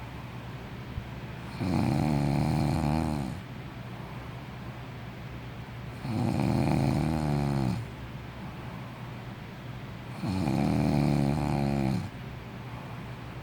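A sleeping person snoring in a steady rhythm: three long, rattling snores, each about one and a half to two seconds, coming roughly every four seconds, with quieter breathing between.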